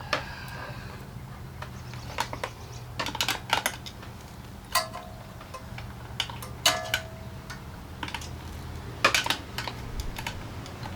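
Scattered light clicks and metal taps of hand tools and small engine parts being handled, in irregular clusters. Two of them ring briefly like struck metal, over a steady low hum.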